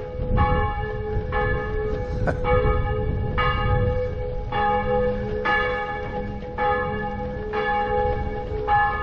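Church bells pealing for a wedding, about one stroke a second, each stroke ringing on over the next.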